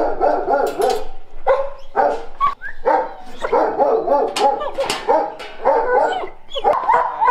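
Dogs in shelter kennels barking and yipping, many barks overlapping without a break, with a few sharp knocks among them.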